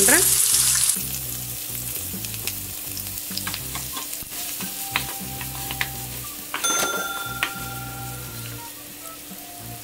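Chopped red onion hitting hot oil in a wok: a loud sizzle that dies down after about a second to a quieter frying hiss, with a wooden spatula stirring and knocking against the pan.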